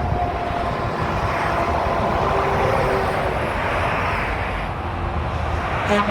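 Motorway traffic passing, truck engines and tyres droning steadily. A truck horn starts sounding near the end.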